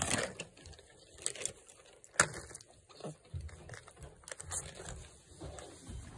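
A plastic trail-mix bag crinkling on and off as a capuchin monkey paws through it, with a few sharp clicks now and then.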